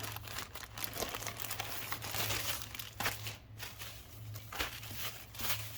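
Plastic packaging crinkling and rustling as it is handled and opened, in irregular bursts of crackle over a steady low hum.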